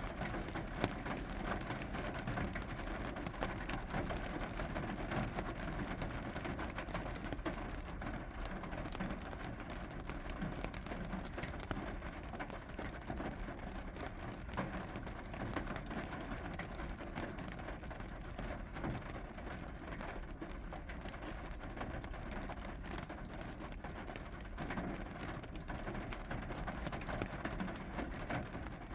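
Steady rainfall: a continuous hiss of rain, dotted with many separate drops ticking.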